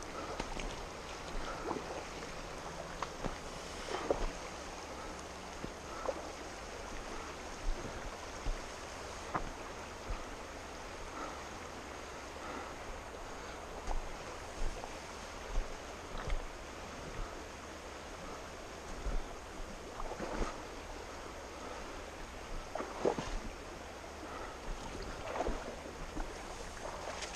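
Steady rush of a fast river with wind buffeting the camera's microphone, broken by irregular short knocks and scuffs every second or two.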